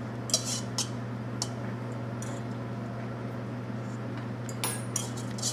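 A steady low hum with a few faint clicks of a spoon and whisk against a stainless steel mixing bowl; near the end the whisk starts scraping around the bowl.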